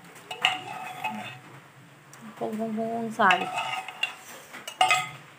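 Metal spoon stirring a thick mixture in an aluminium pot, scraping and clinking against the pot's sides, with sharp clinks about half a second in and again near the end.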